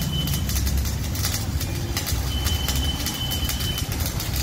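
Manual arc welding on steel bars: the arc crackling and sizzling steadily and unevenly, over a low steady hum.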